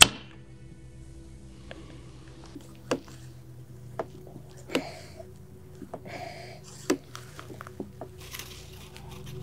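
A sharp burst of compressed air from an air-pump rig, blowing a charge of corn flour out of a cap as a smoke-like puff, dying away in a fraction of a second. Afterwards a few scattered clicks and knocks as the hand air pump is worked.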